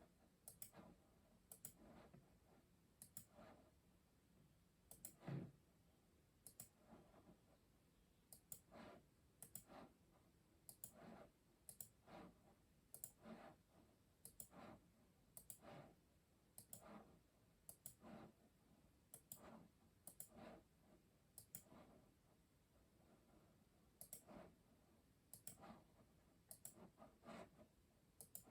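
Faint typing on a custom mechanical keyboard: slow, uneven keystrokes, single clicks and short runs of about one to three a second with short pauses between, and one heavier keystroke about five seconds in.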